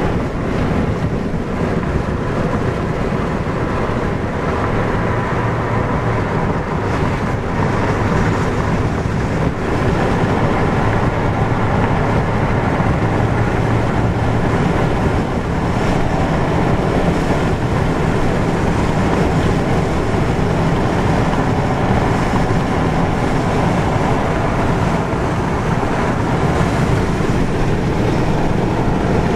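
Steady road noise of a car driving at highway speed, heard from inside the cabin: tyres on asphalt and the engine's low hum.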